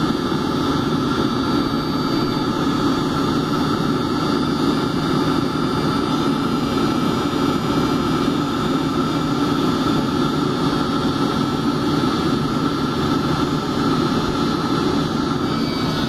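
Webasto diesel heater burning at full load: a steady, even combustion roar and blower hum with a thin constant whine on top, holding without change.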